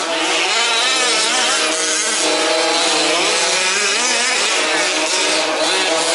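Several 1/5-scale petrol RC off-road cars' small two-stroke engines running together, their high, buzzy pitches rising and falling as the cars rev up and back off.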